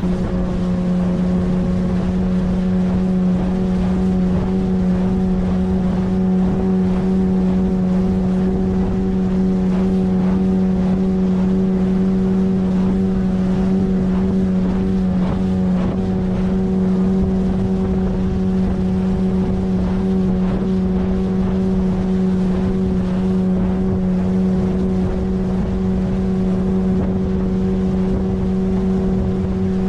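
9.8 hp outboard motor running at a steady, constant speed, pushing an inflatable PVC boat along a river, with water and wind noise under it.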